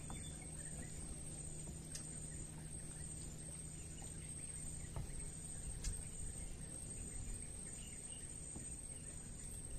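Faint outdoor ambience with a low steady hum, under a short high insect-like chirp that repeats about once a second. A few soft knocks come through, at about two, five and six seconds in.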